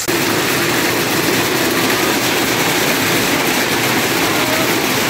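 Heavy hail and rain pelting down on a hail-covered street, a loud, dense, steady rushing noise with no let-up.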